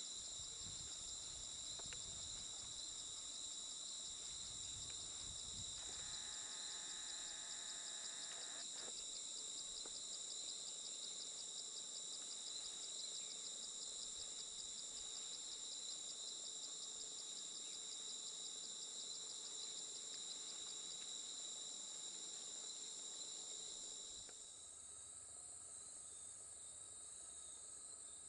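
Insect chorus: a steady high-pitched trilling with fast, even pulsing. About three-quarters of the way through it shifts to a slightly quieter, different chorus.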